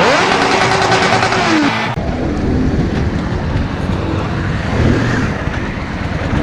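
Yamaha Drag Star 650's air-cooled V-twin engine idling with a steady low pulse, after a louder, brighter sound with falling pitch glides that cuts off abruptly about two seconds in.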